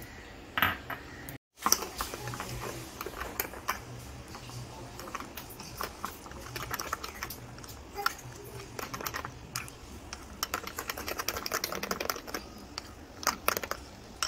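Thick urad dal and rice batter being mixed in a glass bowl: irregular clicks and wet squishing, busier in the second half. The sound cuts out briefly about a second and a half in.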